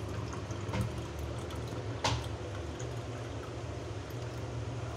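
A steady low hum with two short, sharp knocks, the louder one about two seconds in.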